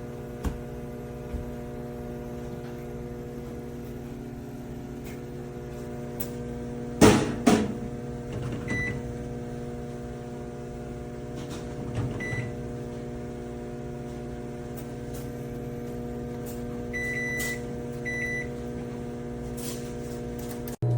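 Toshiba air-fryer microwave combo running with a steady hum, the loud, annoying noise that makes its owner decide to return it. Two loud knocks come about seven seconds in, and short high beeps sound several times later.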